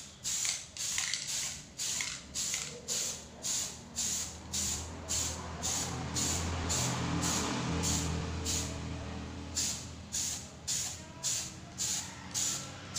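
Aerosol spray-paint can spraying paint onto a fabric backpack in short hissing bursts, about two a second, with one longer continuous spray of a few seconds in the middle.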